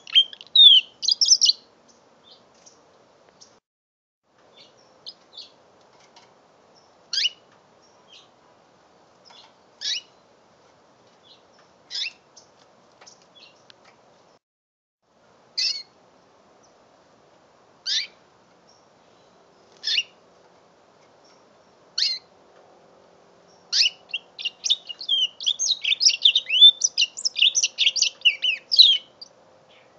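Young mule canary (canary–finch hybrid) singing: a song phrase that ends about a second in, then single high chirps about every two seconds, then a long run of fast twittering song near the end.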